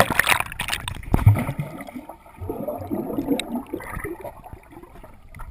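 Pool water splashing and bubbling around a swimming dog, heard with the camera under the water. There are two loud splashes, one at the start and one about a second in, then a stretch of gurgling bubbles.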